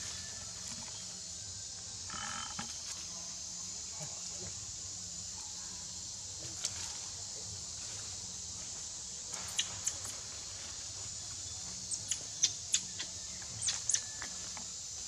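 Steady high-pitched insect chorus, with a run of sharp clicks and snaps in the last few seconds.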